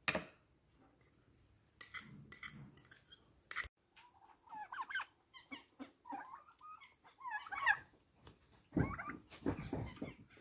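A few sharp knocks and clinks of a spoon against bowls, then from about four seconds in a flock of domestic turkeys calling: a run of short high calls, with a louder, lower call near the end.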